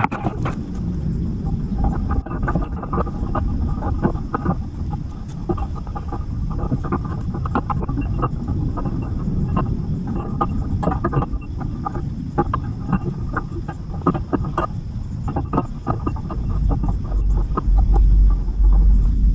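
Leafy vines rustling and crackling as they are pulled and broken out of a chain-link fence by hand, in many short irregular bursts. A low rumble swells near the end.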